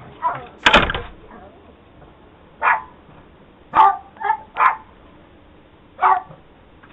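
A dog barking: about seven short single barks at irregular intervals, with gaps of a second or more between some of them.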